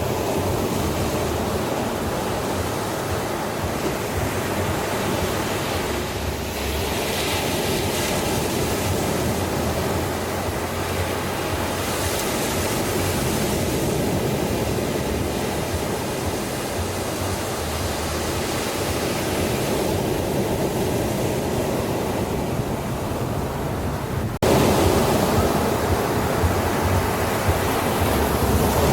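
Ocean surf washing on a beach, a steady rush of waves. About three-quarters of the way through it cuts suddenly to a louder stretch of surf.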